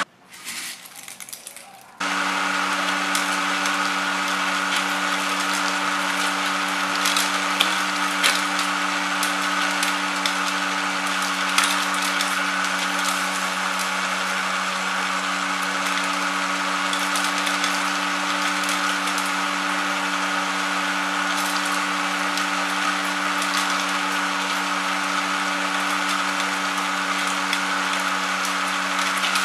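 Homemade kuaci (seed) hulling machine starting about two seconds in and running with a steady hum. Scattered sharp cracks and a crackling hiss run over the hum.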